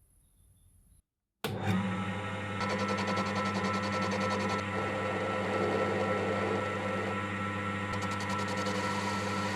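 A workshop power tool's electric motor running steadily with a strong low hum. It starts abruptly about a second and a half in, after a moment of quiet.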